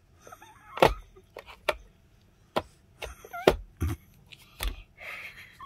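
Handling noise from gloved hands working at a resin crafting table around a UV/LED curing lamp: about six short, sharp knocks and clicks spaced irregularly over five seconds, with a short soft hiss near the end.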